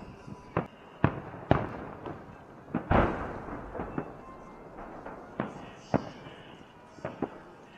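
A fireworks salute: shells bursting in about ten sharp booms at irregular intervals, each trailing off in echo, the loudest about three seconds in.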